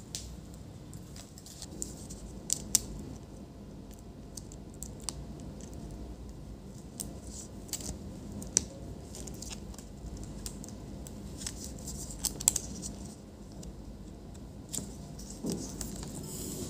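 Scattered small clicks and taps, with a little rustling, as a replacement laptop LCD panel is handled and its display ribbon-cable connector is pressed into its socket.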